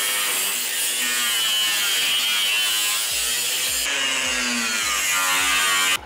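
Metabo angle grinder with a cut-off disc slicing through the steel shell of a water heater tank, a steady grinding whine with a slightly wavering pitch that stops abruptly at the end.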